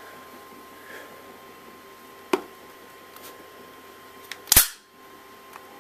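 CO2 airsoft Desert Eagle .50AE blowback pistol fired once, a loud sharp crack about four and a half seconds in. A lighter single click comes about two seconds earlier.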